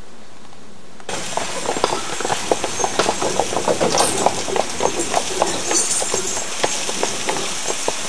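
A steady hiss, then, about a second in, water falling from a wooden flume onto an overshot water wheel: a dense rushing splash full of many small irregular knocks and spatters.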